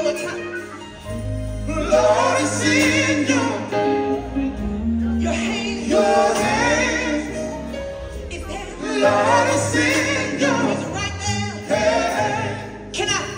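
Live quartet gospel music: a lead singer over a band of electric guitar, bass guitar, drums and keyboard.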